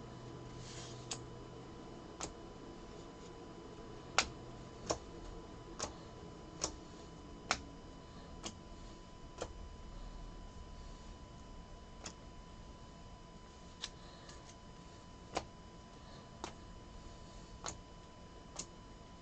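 Trading cards being laid down one at a time onto piles: sharp, short clicks, irregularly spaced about once a second, some much louder than others.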